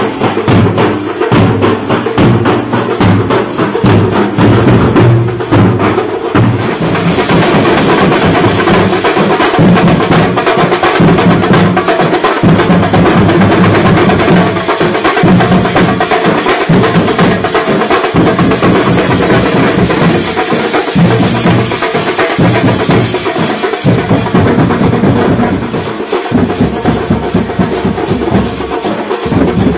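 Music dominated by loud, fast, continuous drumming, with rapid even strikes and a steady low sustained layer beneath.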